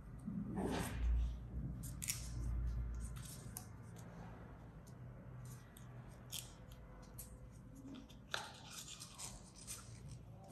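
A paper one-dollar bill crinkling and rustling as it is folded and creased by hand, in short scattered crackles. The rustling is denser about half a second in and again about eight seconds in.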